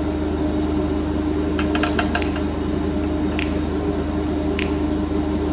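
A steady mechanical hum with low tones, broken by a quick run of light clicks about two seconds in and two single clicks later.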